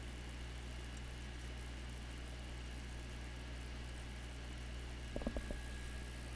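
Steady low electrical or machine hum with a faint high whine, and a quick cluster of about four light knocks about five seconds in.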